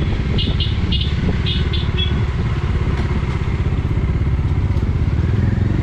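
Motorcycle engine running steadily on the move, a dense low drone. There are a few short high chirps over the first two seconds.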